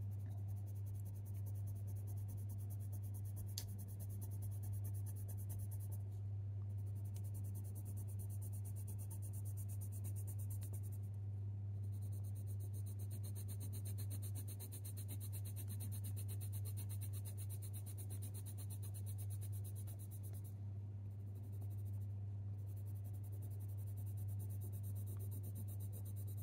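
Faber-Castell Polychromos colour pencil scratching across hot-press watercolour paper in short, repeated fur strokes, with a few brief pauses. A steady low hum runs underneath.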